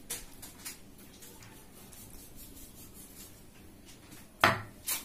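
Faint handling sounds as water is poured onto wheat flour in a steel bowl, then a loud, short clank of metal on the steel bowl about four and a half seconds in.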